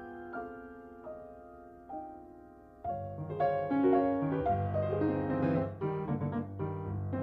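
Piano music: soft, sparse notes at first, then fuller, louder chords over a bass line from about three seconds in.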